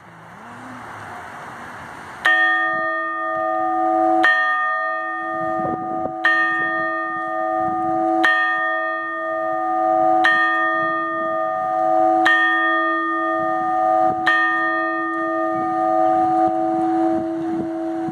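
A bronze church bell cast in 1891 is tolled. The first stroke comes about two seconds in, then a stroke every two seconds, seven in all. Each stroke rings on, with a low hum that keeps sounding between strokes.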